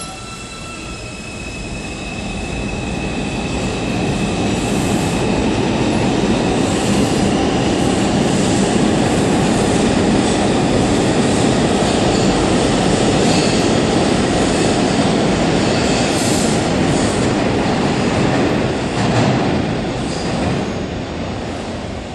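R142 subway train pulling out of the station and accelerating away: a dense rumble of wheels and motors builds over the first few seconds, holds, then fades near the end as the train leaves. A faint high whine sounds through the first several seconds.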